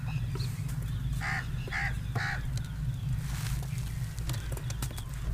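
A bird calls three times in quick succession, short calls starting about a second in and roughly half a second apart, over a steady low hum. Faint clicks and crackles come from the hardened dough seal being broken off the rim of an aluminium cooking pot.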